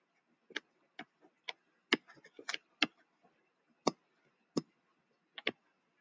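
Irregular sharp ticks and taps of a stylus on a tablet or touchscreen while words are handwritten, about a dozen clicks with short gaps between them.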